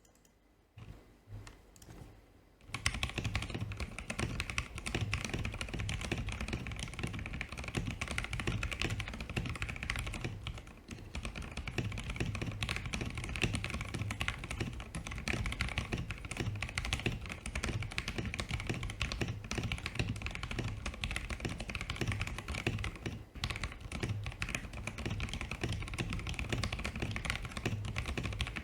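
Stock Press Play Rover84 v3 gasket-mount mechanical keyboard, with Gateron Pro Yellow linear switches, prelubed stabilisers and PBT keycaps, being typed on fast and continuously. A few light taps come first, and the steady typing starts about three seconds in, with brief pauses twice.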